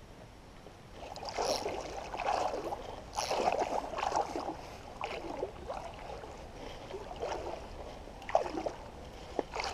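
Creek water splashing and sloshing in irregular bursts, busiest in the first half.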